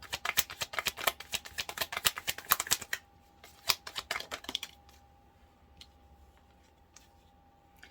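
Tarot cards being shuffled: a quick, dense run of card clicks for about three seconds, then a couple of single card taps, then quiet.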